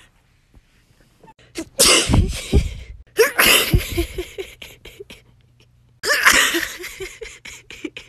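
A woman sneezing three times, about two, three and a half and six seconds in, each a loud, sudden burst. The sneezes are brought on by tickling her nose with a tissue.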